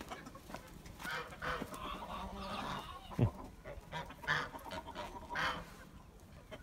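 Farmyard poultry calling: scattered short squawks and clucks, with one louder call about three seconds in that drops sharply in pitch.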